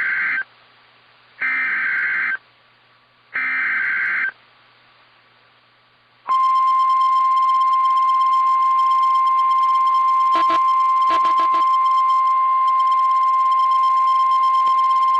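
Emergency Alert System SAME header: three short bursts of digital data noise, each about a second long and about a second apart. After a short pause the steady single-pitch NOAA Weather Radio warning alarm tone sounds for about nine seconds, the signal that a warning message follows.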